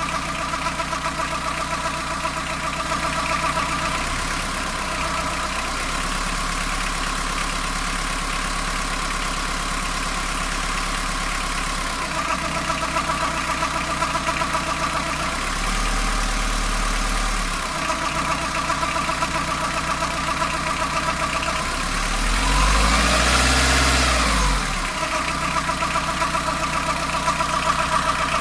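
Fiat Ducato van engine idling warm, with a noise from the belt side of the engine that shows only at idle once warmed up. The engine speed lifts briefly a few times, most clearly late on, rising and falling back to idle.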